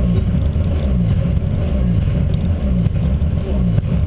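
Peugeot 106 S16 rally car's 1.6-litre four-cylinder engine running at low revs, heard from inside the cabin, its note pulsing about twice a second.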